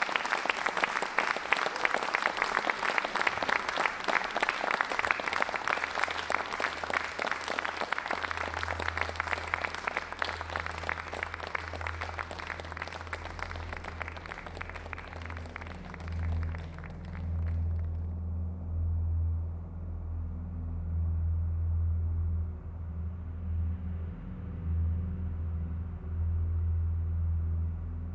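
Audience applauding, thinning out and then cut off about eighteen seconds in. A low, swelling rumble enters under the clapping about eight seconds in and carries on alone after it.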